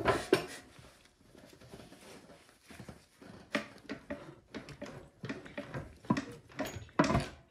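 Automatic transmission being worked loose from the back of the engine by hand, with scattered metal clunks, knocks and scrapes and a few sharper knocks.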